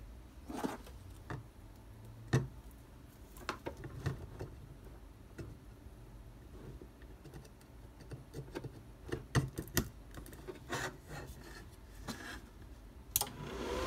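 Scattered light clicks and knocks of power cables and connectors being handled and plugged into a crypto-miner control board. A sharp click near the end as the power supply is switched on, with its cooling fan starting right at the close.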